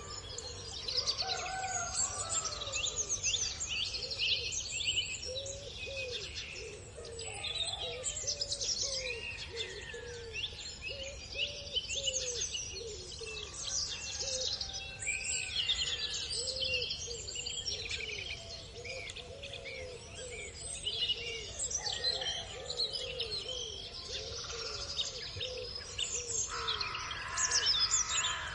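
Dawn chorus of many songbirds chirping and trilling together, with a lower call repeating through much of it over a steady low background hum.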